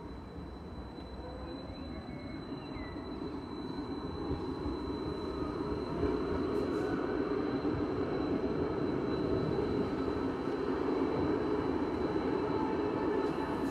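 Stadler Variobahn light-rail tram running along its track, a steady rolling rumble of wheels and drive that grows louder about halfway through, with a thin steady high tone above it.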